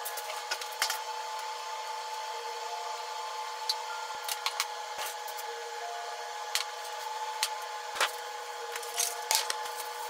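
Scattered light clicks and taps of kitchen dishes and utensils being handled on a counter, with a rustle of plastic wrap near the end, over a faint steady tone.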